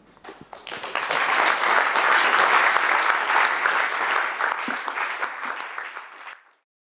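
Audience applauding at the end of a talk. The dense clapping swells within the first second, then thins out and is cut off abruptly shortly before the end.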